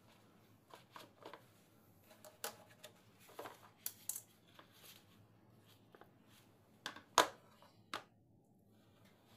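Plastic gloves rustling and light plastic clicks as a plastic dumpling press is handled and filled, with a sharp plastic click about seven seconds in and a second one a moment later as the press is closed.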